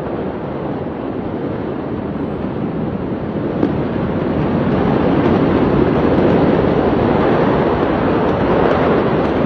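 A steady rushing noise with no distinct events, growing louder about four seconds in.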